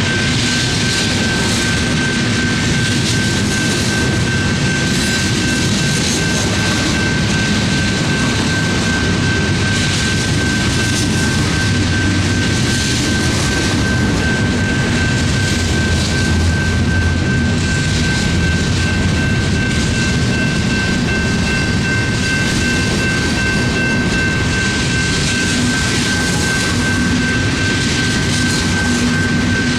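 Freight cars of a long train rolling steadily past a grade crossing, a continuous rumble and rattle with a steady high-pitched tone over it.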